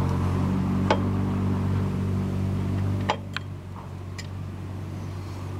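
A vehicle engine idling steadily. It starts abruptly and drops a little in level about three seconds in. A few light clicks from tools being handled at the stove sit on top of it.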